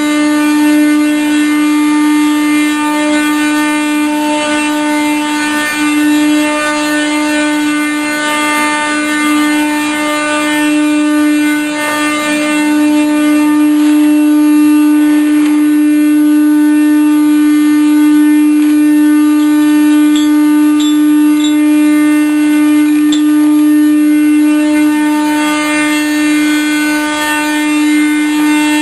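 Boiler pressure relief valve blowing off, giving out a loud, steady horn-like tone with overtones: the system pressure has reached the valve's 30 psi setting.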